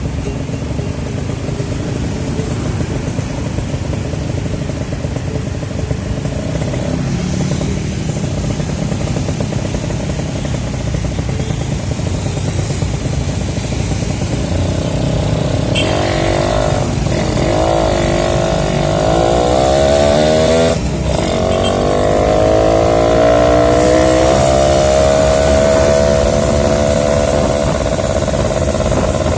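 Suzuki Tornado two-stroke motorcycle engine running while ridden. About halfway through it pulls harder with the pitch rising, drops away briefly as it shifts gear, then rises again and holds steady.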